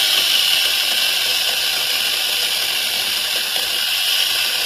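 Electric angle grinder fitted with a chainsaw adapter, running steadily with a high, hissing whine.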